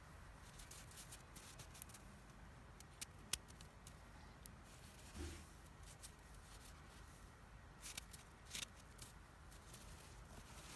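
Faint, scattered crisp crunches and crackles of snow, with a few louder ones about three, five and eight seconds in.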